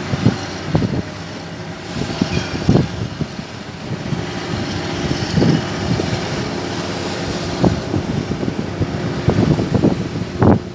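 Bulk carrier's deck cranes working coal grabs, with a steady machinery hum and rush, while wind buffets the microphone in irregular low gusts.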